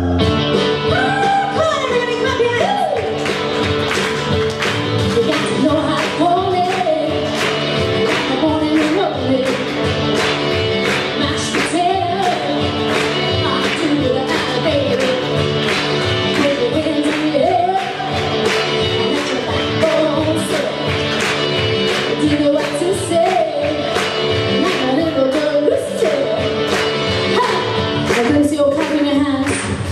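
Female vocal group singing an upbeat Motown-style song over backing music with a steady drum beat.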